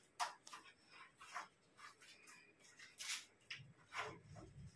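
Faint, intermittent rustling and scraping as a protective cover and its strap are fitted over a speaker cabinet.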